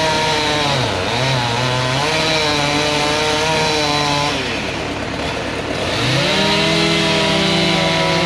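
Chainsaw engine running at high revs. It dips briefly about a second in, drops away shortly before the middle, and is throttled back up about six seconds in, where it holds.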